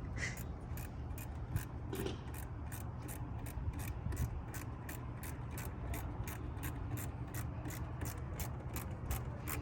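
Hand ratchet wrench clicking steadily, about three clicks a second, as a fastener is turned.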